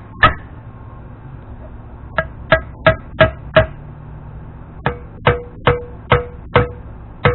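Repeated hammer blows on a steel seal driver, tapping a new grease seal into a Dana 44 front wheel hub bore. There are about a dozen sharp, ringing strikes, each run at roughly three a second. After a short pause halfway through, the blows come slightly slower and ring at a lower pitch.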